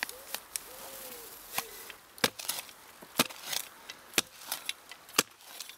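Folding spade stabbing into rock-hard, dry soil, about one sharp strike a second, as a burdock root is dug out.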